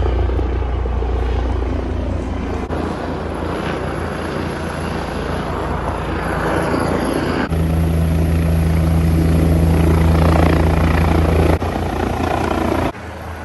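Helicopter flying very low overhead as it comes in to land, its rotor and engine noise loud and steady. It grows louder about halfway through and drops away suddenly near the end.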